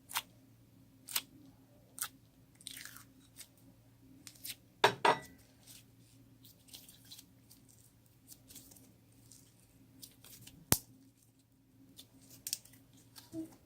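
Slime being worked by hand, giving irregular sticky clicks and crackling pops, with the loudest burst of crackles about five seconds in.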